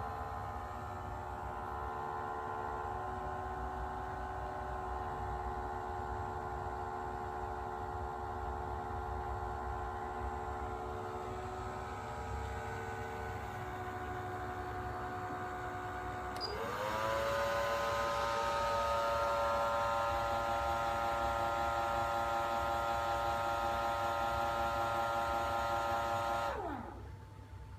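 OSIM OS-338 massager running with its heating function on, its motor giving a steady whine of several tones: the noisy abnormal sound it makes with the heat switched on. About sixteen seconds in it speeds up with a quick rising whine to a louder, higher steady pitch, then winds down with a falling whine and stops near the end.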